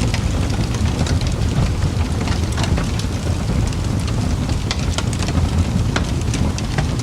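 Fireplace fire crackling: a steady low rumble of burning with frequent irregular pops and snaps of the wood.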